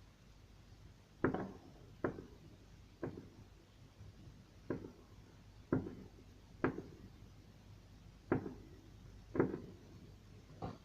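Firework bangs: eight sharp bangs, about one every second or so at uneven intervals, each trailing off briefly.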